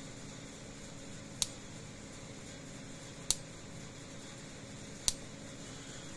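Power Wizard PW100S solar fence charger pulsing: three sharp snaps about two seconds apart, each pulse sparking across a wire bridging the fence and ground terminals, a sign the charger is firing.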